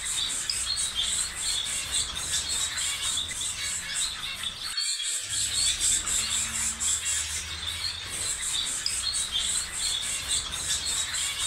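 Bird and insect ambience: birds chirping over a dense, pulsing insect chorus. It cuts out briefly about five seconds in, then the same stretch starts again.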